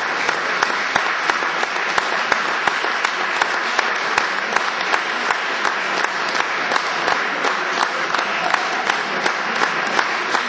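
Audience applauding steadily, a dense run of hand claps with individual sharp claps standing out throughout.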